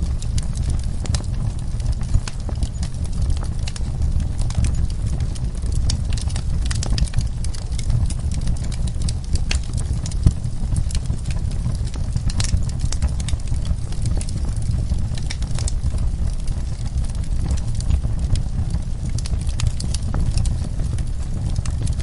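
Logs burning in a wood fireplace: a steady low rumble of flame with frequent sharp crackles and pops, one louder pop about ten seconds in.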